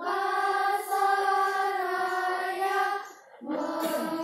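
A choir of schoolchildren singing in unison in slow, long held notes, breaking off for a breath about three seconds in before the next phrase.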